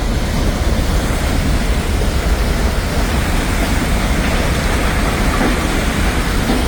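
Floodwater of a swollen mountain river rushing past in a loud, steady, unbroken rush.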